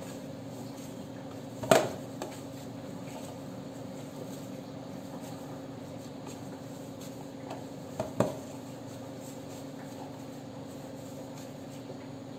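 Two sharp clanks of a steel plate knocked as chhena dough is kneaded on it by hand, one about two seconds in and a double clank about eight seconds in, over a steady hum.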